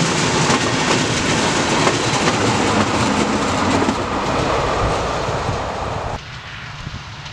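Push-pull train passing, the Class 223 Eurorunner diesel-electric locomotive at its rear, wheels clattering over the rail joints as it goes by and draws away. About six seconds in the sound drops suddenly to a much quieter background.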